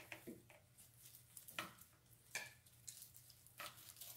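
Curling ribbon being drawn across a scissor blade to curl it: a few faint, brief scraping rustles about a second apart.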